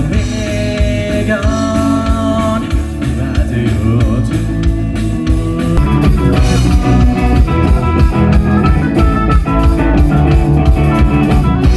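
Rock music with a singer holding long notes over a full band; it gets a little louder about six seconds in.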